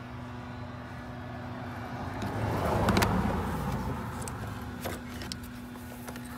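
A passing vehicle whose noise swells to a peak about three seconds in and then fades, over a steady low hum, with a few sharp clicks.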